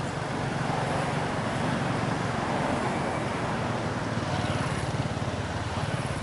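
A motor vehicle running on a nearby road: steady engine and road noise with a low rumble, growing louder about a second in.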